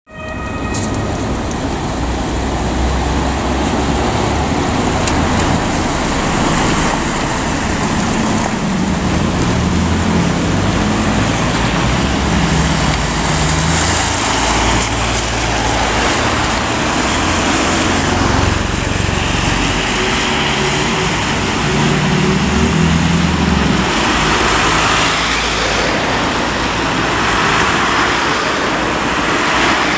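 City street traffic: road vehicle engines running steadily, with a continuous hiss of tyres on a wet road.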